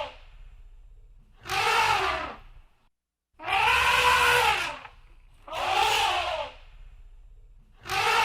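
Elephant trumpeting: four loud trumpet blasts of about a second each, coming roughly every two seconds, each rising and then falling in pitch. The last one starts near the end.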